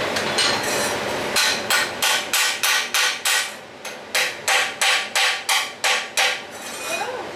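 Steel chipping hammer rapping slag off a freshly laid rutile-electrode fillet weld on steel plate: about sixteen quick metallic strikes, roughly four a second, with a short pause in the middle. They start after a steady noise cuts off about a second and a half in.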